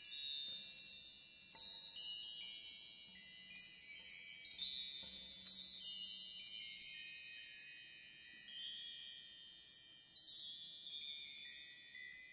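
High-pitched wind chimes tinkling: many small chimes struck at irregular moments, each ringing on and overlapping the next.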